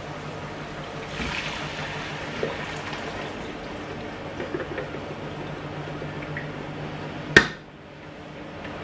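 Thick blended tomato and pepper puree pouring and trickling from a blender jug into a pot of sauce. A sharp knock near the end.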